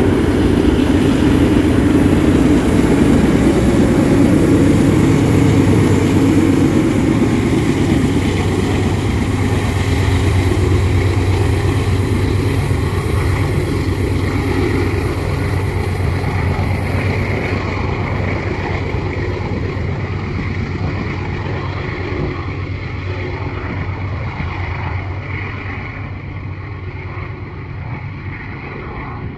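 Union Pacific freight train rolling by, a dense rumble with a steady low drone that slowly fades as the train draws away.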